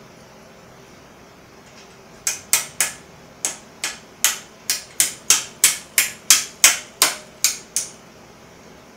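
A seat post and seat being tapped down into a bicycle frame with a hammer: about seventeen quick, sharp strikes starting about two seconds in, mostly getting louder as they go.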